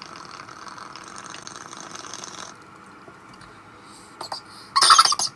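Water bubbling in a glass dab rig as a dab is drawn through it: a gurgling hiss lasting about two and a half seconds. Near the end comes a short, loud burst of breath as the hit is let out.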